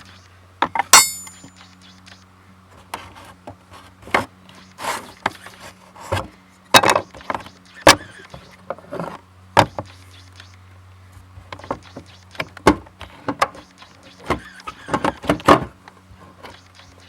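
Hand work with tools and parts: an irregular run of clicks, knocks and rubbing, with a sharp ringing metallic clink about a second in, over a steady low hum.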